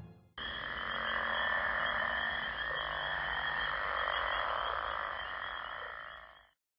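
A dense chorus of croaking frogs, swamp ambience that starts suddenly about half a second in and fades out near the end.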